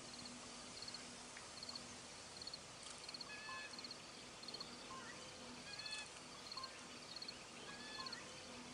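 Faint natural ambience: short high trills repeating about once a second, with a few short whistled bird chirps, over a low steady hiss and a faint low hum.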